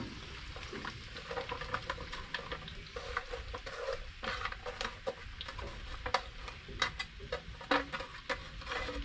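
Sliced courgette dropping from a container into a frying pan of hot olive oil and onions, sizzling gently on a low heat, with many irregular light clicks and scrapes as the slices land and shift.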